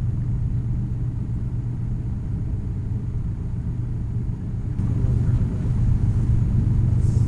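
A steady low mechanical hum over a rumble, like a motor running, growing somewhat louder about five seconds in.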